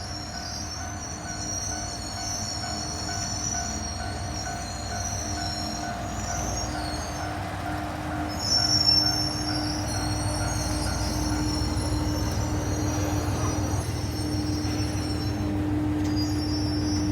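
ET122-1000 series diesel railcar running at the station with a steady engine hum and a high, wavering squeal, the low rumble growing louder about halfway through.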